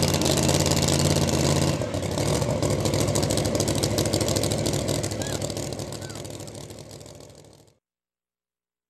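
Modified two-wheel-drive pulling truck's engine idling steadily while hooked to the sled. It drops a little in level about two seconds in, then fades away and goes silent near the end.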